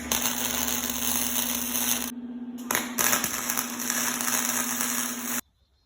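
Handheld power tool running with a steady motor hum, working against material with a harsh grinding noise. The tool lifts off the work for about half a second around two seconds in while the motor keeps running, then bears in again, and everything stops abruptly near the end.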